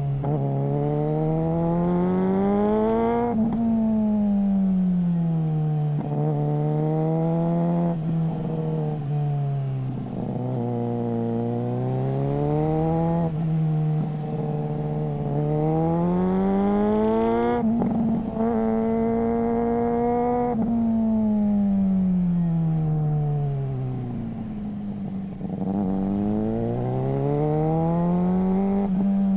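Suzuki GSR600's inline-four engine through a GPR Ghost aftermarket exhaust, revving up and easing off in repeated swells. The pitch climbs for a few seconds under acceleration, then sinks slowly as the engine runs down, three times over.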